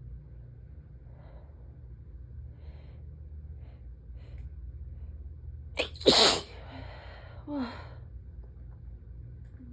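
A person sneezes once, loudly, about six seconds in, with a quick gasping in-breath just before it and a shorter breath sound a second and a half after. Faint, regular breathing comes before the sneeze.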